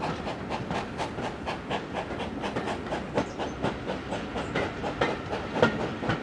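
GWR Manor class 4-6-0 steam locomotive 7802 Bradley Manor hauling its train, its exhaust beating quickly and evenly at about six chuffs a second, heard from a carriage window. A few louder knocks from the running gear come through now and then.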